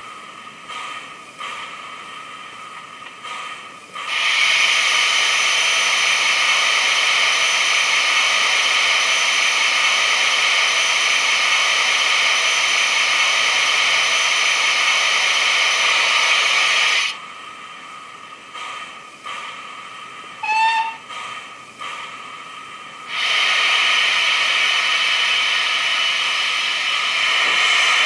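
DCC sound decoder in a model GWR 'City' class steam locomotive playing steam effects: a loud, steady steam hiss for about thirteen seconds, softer puffs, a brief whistle toot about twenty seconds in, then the loud hiss again from about twenty-three seconds as the engine begins to move.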